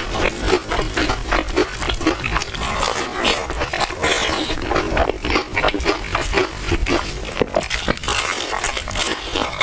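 Close-up chewing and lip-smacking of a person eating, a steady run of quick mouth clicks.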